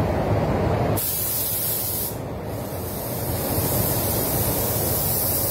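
Compressed air hissing from a gravity-feed paint spray gun, starting about a second in with a short break about a second later before it resumes. A steady low rumble runs underneath.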